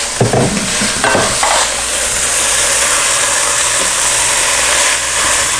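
A spoon stirs a chili mixture of beef and freshly added kidney beans in a red enamelled Dutch oven, over a steady sizzle from the pot. A few scrapes and knocks come in the first second and a half.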